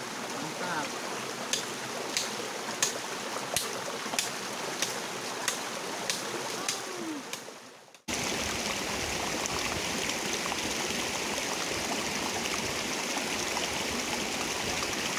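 Shallow rocky stream running over stones. In the first half a run of about ten sharp clicks comes roughly every two-thirds of a second over the water. After a cut about halfway through, the water sound is steady and a little louder.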